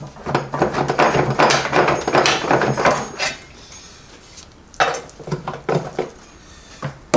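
Metal tools and parts clinking and clattering against the steel of a transfer case being dismantled: a dense run of knocks and clicks for about three seconds, then a shorter spell a couple of seconds later.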